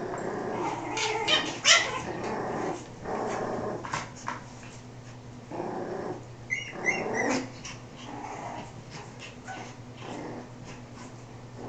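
Several small puppies play-fighting, with growls in bursts and a few short high yips about six to seven seconds in, and scattered clicks.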